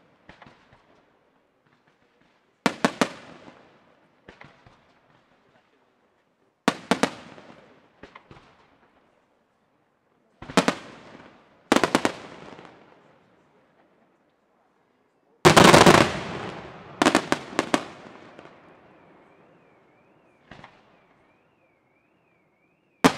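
Aerial firework shells bursting: sharp bangs a few seconds apart, each trailing off in crackle, with a dense volley of bangs about two-thirds of the way through. A wavering high whistle runs through the last few seconds.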